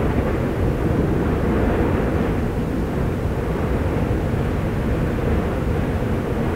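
Fagradalsfjall volcano erupting: a steady, loud, deep roar from the lava-filled crater, with no breaks or separate bangs.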